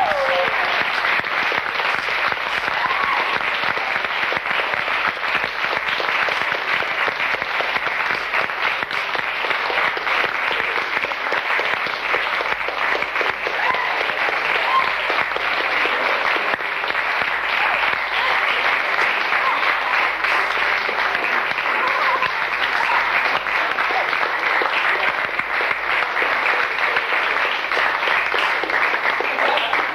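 Audience applause, dense and sustained, that begins to die away near the end.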